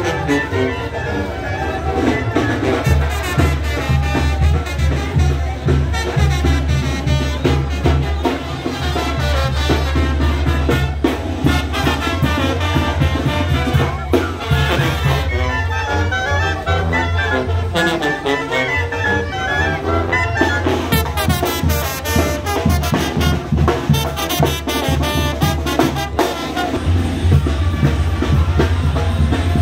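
Brass band playing, with trumpets and trombones over a steady tuba bass line.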